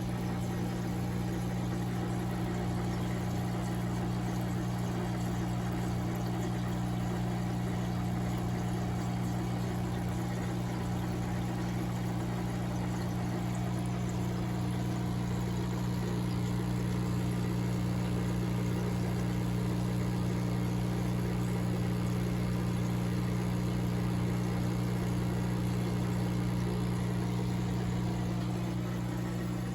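Steady mechanical hum from running aquarium equipment on a coldwater trout tank, with an even low drone and a faint hiss over it.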